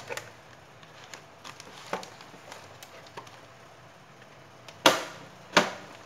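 Plastic housing of an electric instant shower heater being pried open by hand: light clicks and knocks, then two loud sharp snaps about half a second apart near the end as the cover comes loose.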